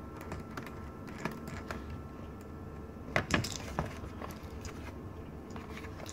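Scattered light clicks and taps as the parts of a Dell Mini 910 netbook are handled during disassembly, with a few sharper clicks a little over three seconds in.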